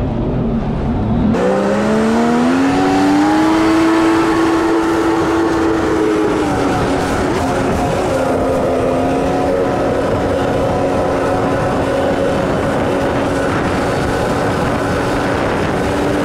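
Sea-Doo jet ski engine revving up as the craft accelerates, its pitch rising for about two seconds, then running at a steady cruising pitch that eases off slightly partway through. Wind and rushing water run throughout.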